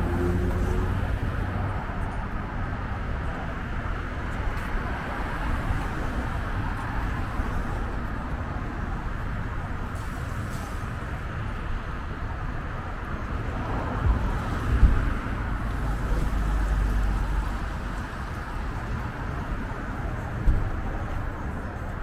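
Steady road traffic noise, a continuous hiss and rumble of passing cars, with two sharp low thumps about fifteen and twenty seconds in.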